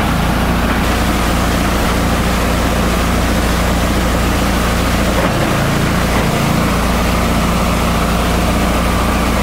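Esteban multi-purpose chopper-shredder running steadily with a low hum while shredding paper (books and bank notes).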